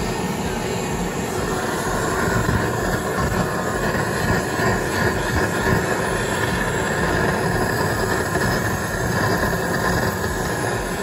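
Honda Beat FI scooter's 110 cc single-cylinder engine running steadily, driving the rear wheel through the freshly rebuilt final-drive gearbox. There is no rough bearing noise: new bearings in the gear case have cured the grinding.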